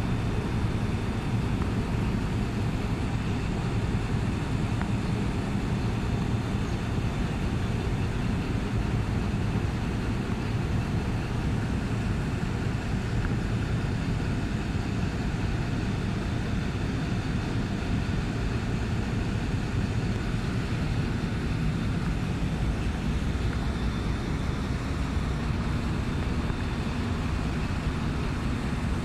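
Steady low rumbling background noise with no distinct events; the parked steam locomotive is dead and makes no sound of its own.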